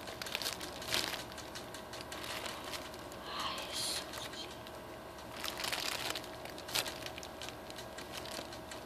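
Clear plastic bag crinkling in irregular crackles as a foam squishy is handled and squeezed in it, over a fan's faint steady hum.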